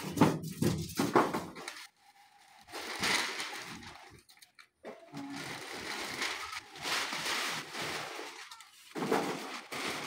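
Refrigerator packing being handled: a few thumps and knocks about the first two seconds, then bouts of scraping and rustling as polystyrene packing pieces and the cardboard box are moved around.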